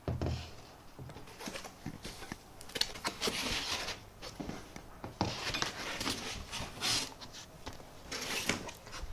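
Packing materials being handled while unboxing: irregular rustling and scraping, with a soft thump at the start.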